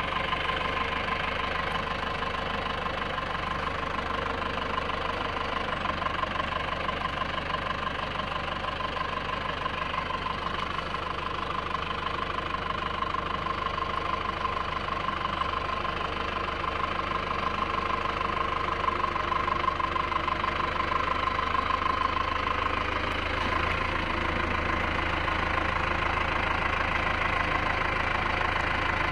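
Diesel engine of a Mahindra Arjun Novo 655 4x4 tractor running steadily as the tractor noses down a steep earthen embankment, a little louder about two-thirds of the way through.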